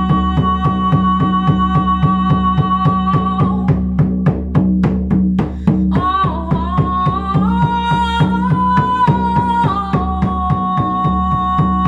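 Shamanic frame drum struck with a padded beater in a steady, even beat, under a woman's long, held sung vowels. The voice drops out for about two seconds about four seconds in, leaving the drum alone, then comes back, stepping up in pitch and later settling back down.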